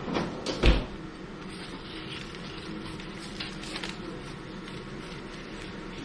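A sharp thump just under a second in as the paper label strip is handled at the rewinder, then faint rustling of the label paper over a steady background hum.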